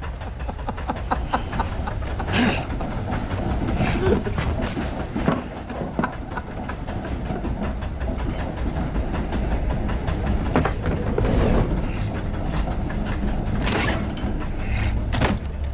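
Moving train heard from inside a railroad car: a steady low rumble with rattling clatter, broken by several loud, sharp impacts.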